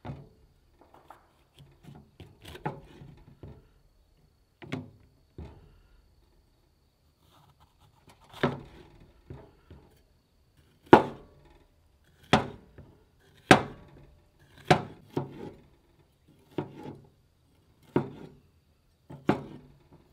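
Knife slicing a red bell pepper on a cutting board, each cut ending in a sharp knock of the blade on the board. A few scattered cuts at first, then steady strokes about one a second through the second half.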